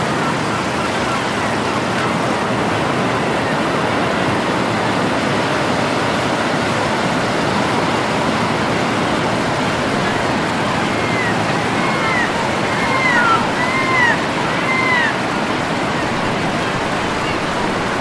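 Ocean surf breaking on a beach: a steady, continuous rush of waves. About two-thirds of the way through, a handful of short, high, arching chirps sound over it.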